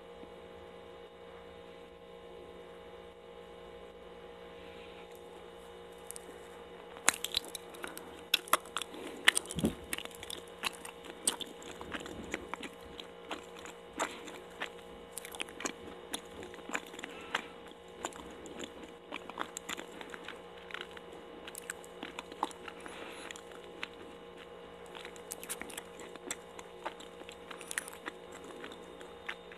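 Close-miked chewing of a sweet daifuku mochi: many sharp, wet mouth clicks and smacks, starting about seven seconds in, over a steady electrical hum.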